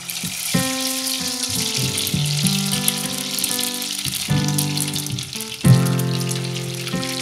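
Pieces of beef frying in hot oil in a stainless steel pot: a loud, steady sizzle. Background music plays under it.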